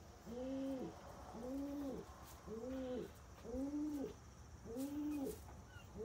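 Domestic pigeons cooing: a steady series of low coos, each rising then falling, about one a second, with faint high squeaks near the end.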